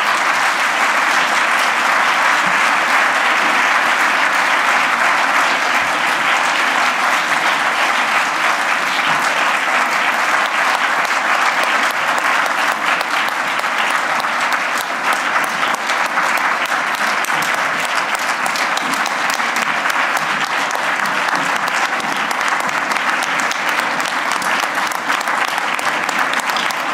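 A large audience applauding: dense, steady clapping that keeps up without a break.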